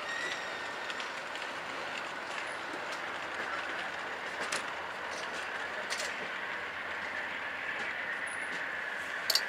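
Amtrak California Zephyr passenger train rolling past with steady rail and wheel noise that grows louder toward the end, with a few sharp clicks from the wheels and cars.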